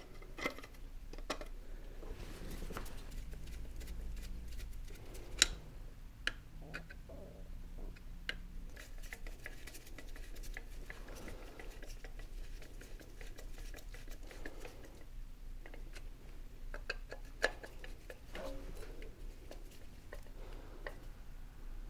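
Scattered small clicks and taps of a new distributor rotor being pressed into place and the distributor cap being fitted on a Chevy 350 V8, with two sharper clicks about five seconds in and near the end, over a low steady hum.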